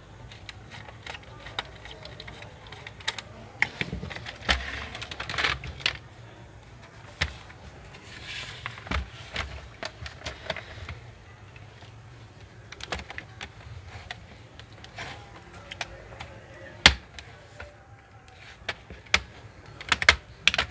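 Irregular clicks, knocks and scrapes of plastic as an HP Pavilion G4 laptop's case is handled, turned over and opened, and its palmrest panel is pried loose. One louder knock comes near the end, followed by a quick run of clicks.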